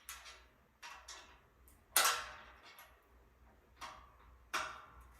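Ratchet key clicking in five short bursts at uneven intervals, the loudest about two seconds in, as a bolt on a metal bed frame is tightened.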